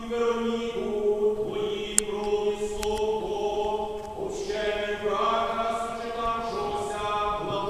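Eastern-rite liturgical chant sung during a church wedding service: held notes moving in steps, with no break. A single sharp click sounds about two seconds in.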